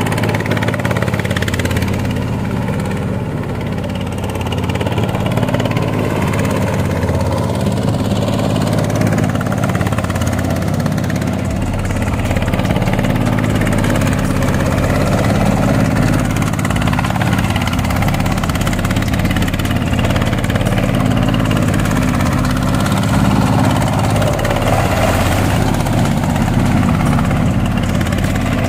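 Boat tractor's 20 hp Chinese diesel engine running steadily under load while ploughing a flooded paddy field.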